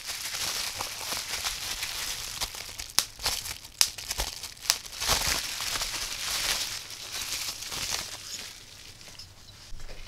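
Bubble wrap crinkling and rustling as it is handled and pulled open by hand, with a few sharp clicks about three to five seconds in. It quietens over the last couple of seconds.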